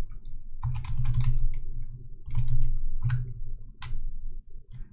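Typing on a computer keyboard in several quick bursts of keystrokes, with one sharper single keystroke near the end.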